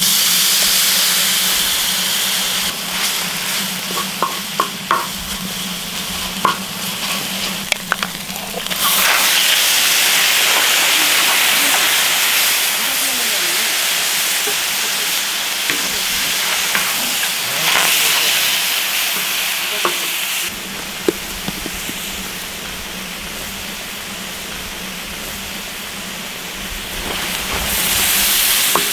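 Frying on a large round pan: a steady sizzle with small taps and scrapes of a utensil on the pan early on, growing much louder about nine seconds in, when webfoot octopus is steaming in the pan, then easing off around twenty seconds and rising again near the end as the octopus is stirred with a wooden spatula.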